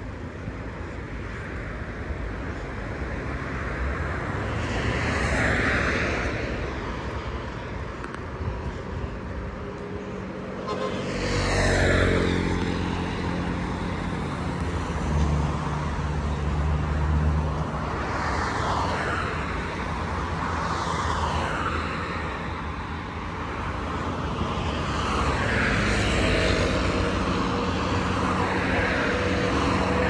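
Road traffic: cars passing one after another, each swelling and fading with a tyre-and-engine rush. About eleven seconds in, a vehicle goes by with its engine note falling in pitch as it passes.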